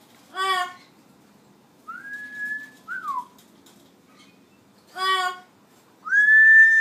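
A pet talking parrot whistling and calling. About two seconds in it gives a two-note wolf-whistle, a rising note held steady and then a falling one. Near the end comes a louder rising, held whistle, with short calls about half a second and five seconds in.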